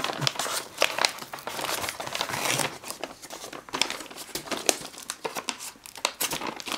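Yellow paper mailer envelope being slit open with a folding knife and crinkled and rustled as it is handled, a dense run of sharp crackles.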